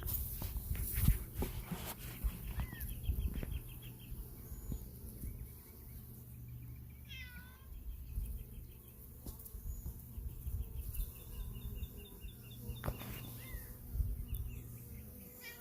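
Animal calls: two runs of rapid, evenly spaced trilling and a short call about halfway through whose pitch bends up and down, over a low steady hum.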